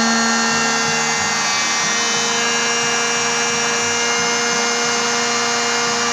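Electric heat gun running steadily: its fan motor gives a constant whine over the rush of blown air, and it starts to wind down right at the end.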